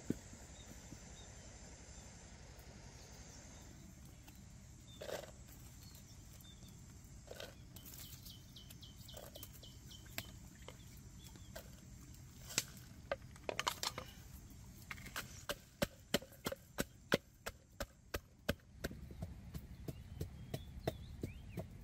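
A series of sharp knocks and cracks, scattered at first, then an even run of about three knocks a second.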